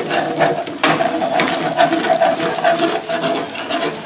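Metal tongs scraping and clicking irregularly against a stainless steel sauté pan while stirring flour into frying chopped bologna and grease, over a sizzle. This is the flour being cooked in the fat to make a roux for gravy.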